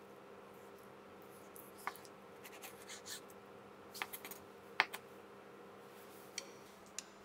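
Knife slicing through a plastic-wrapped vegetable terrine set in gelatin, with faint crinkles of the plastic wrap and a few small sharp clicks over a steady low hum.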